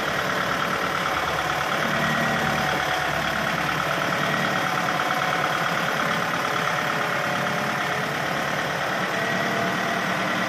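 Kubota MU5702 tractor's four-cylinder diesel engine running at a steady, even speed while the tractor is driven slowly.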